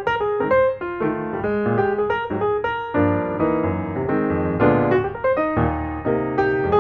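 Background piano music, a steady run of notes over chords.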